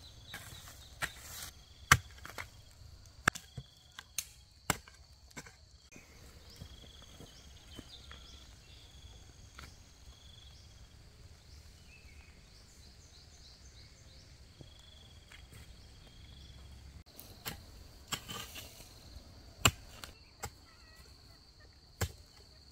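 Sharp, irregular strikes of a hand tool chopping: a cluster of blows in the first few seconds, a pause of over ten seconds, then a few more blows near the end. Insects trill steadily in the background.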